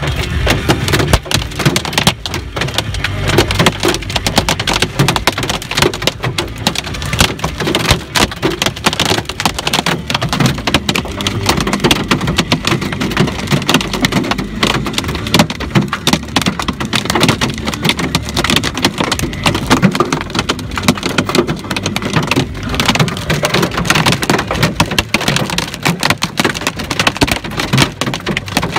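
Hailstones about an inch across pelting a car's windshield and body, heard from inside the car: a dense, continuous clatter of hits, hard enough to crack the windshield.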